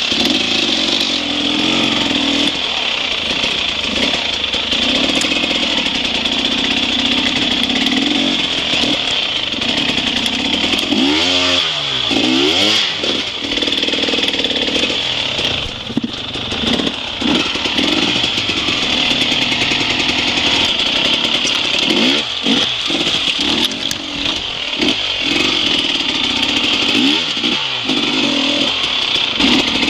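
Enduro dirt bike engine running under throttle, revving up and down again and again, most clearly around the middle and several times near the end.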